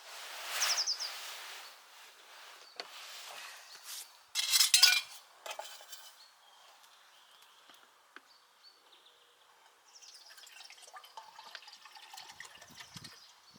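Clinking and clattering of camp cookware and cutlery, with the loudest clatter about four and a half seconds in, then faint scattered ticks near the end.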